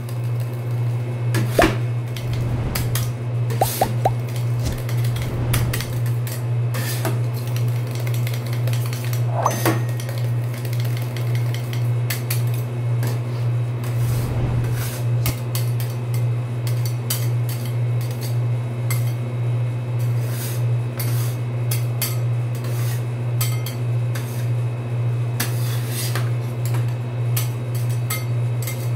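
Two metal spatulas chopping and scraping ice cream mixture on a stainless steel cold plate: quick metallic taps and scrapes in an uneven rhythm, over a steady low hum.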